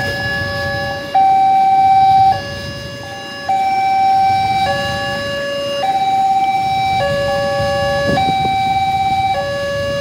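Railway level-crossing warning alarm sounding: an electronic two-tone signal alternating steadily between a higher and a lower tone about every second, warning that a train is approaching and the crossing is closed. Idling motorcycle and car engines murmur underneath.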